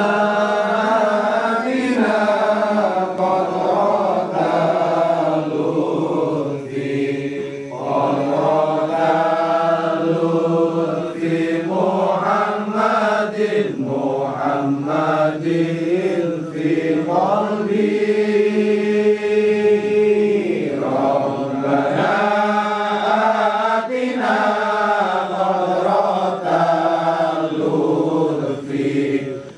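Voices chanting Islamic wirid and sholawat in Arabic, in long drawn-out melodic phrases, with one note held for about three seconds a little past the middle.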